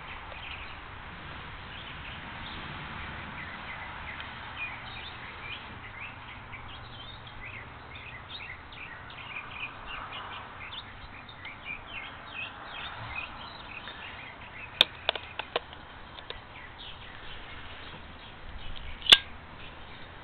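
Small birds chirping in the background, with a cluster of sharp clicks about fifteen seconds in and one louder click near the end.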